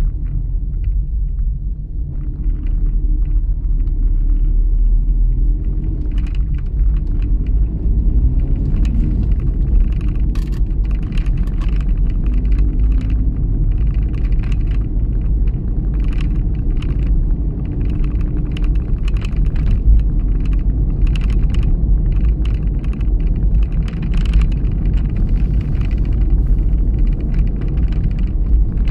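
A car driving along a narrow, rough country lane, heard from inside the cabin: a steady low rumble of engine and tyres, with the engine note drifting up and down as the speed changes and frequent small ticks and rattles over the road surface.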